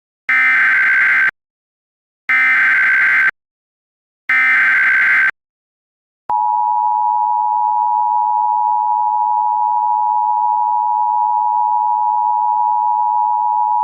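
Emergency Alert System SAME header: three one-second bursts of warbling digital data tones, one second apart. About six seconds in, the steady two-tone EAS attention signal begins, the chord that announces an emergency alert broadcast.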